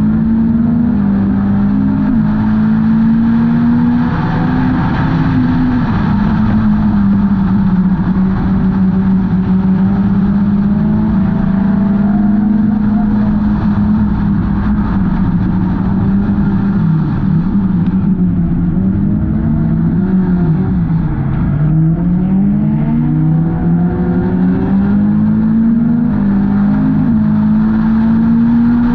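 Four-cylinder Hornets-class race car engine running hard under racing load. Its pitch holds high with small rises and falls, drops sharply about two-thirds of the way through as the throttle eases, then climbs back up under acceleration.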